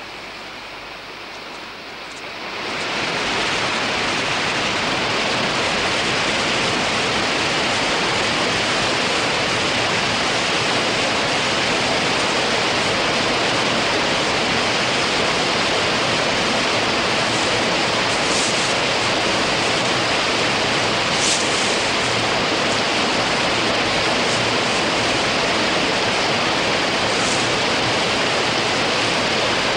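A loud, steady rushing noise that swells in about two seconds in and then holds even, with a couple of faint high ticks later on.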